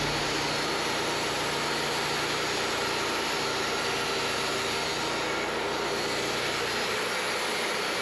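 Wood-Mizer LT40 Hydraulic bandsaw mill running steadily under load, its 26 hp engine driving the band blade through a log as it saws off a 2-inch-thick live-edge slab.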